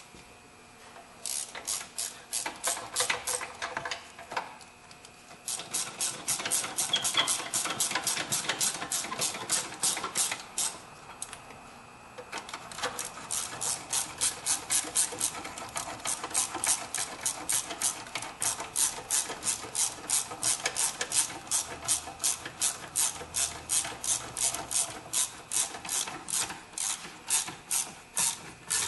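Socket ratchet clicking in quick, even runs as it is worked back and forth, tightening the battery hold-down nut. Several clicks a second, with short pauses about four and eleven seconds in.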